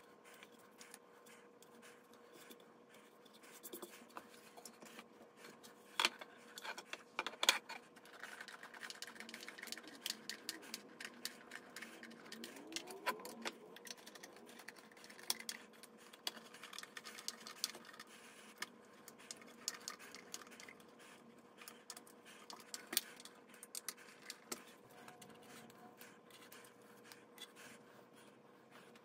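Faint clicks, scrapes and scratches of flat-pack nightstand assembly: a hand screwdriver turning screws into the top panel and small hardware being handled, with a few sharper clicks about six and seven seconds in. A faint steady hum runs underneath.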